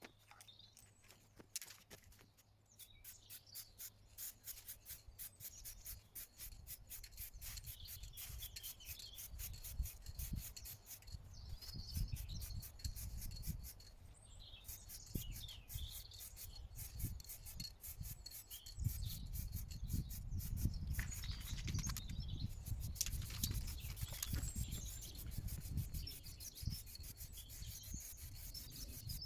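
Compound polish being rubbed over a boat's hull: a quick, continuous run of rubbing strokes. Birds chirp in the background.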